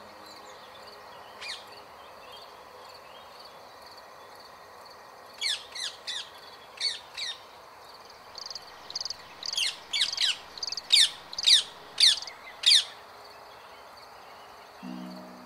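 Rose-ringed parakeet squawking: short, shrill calls that each drop sharply in pitch. They are sparse at first, then come faster and louder in the second half.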